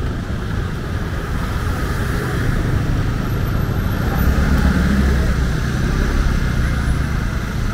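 City street traffic heard from a rolling rickshaw: car and motor scooter engines running close ahead, over steady road noise. A low rumble swells around the middle.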